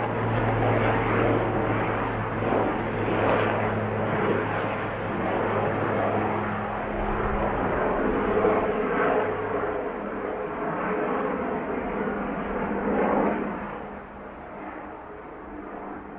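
Helicopter flying overhead: a steady drone of rotor and engine that grows quieter about thirteen seconds in as it moves away.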